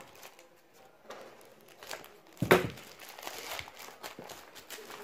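Thin black plastic delivery bag crinkling and rustling as hands pull it open: nearly quiet at first, then scattered crackles with one sharp, loud crackle about halfway through.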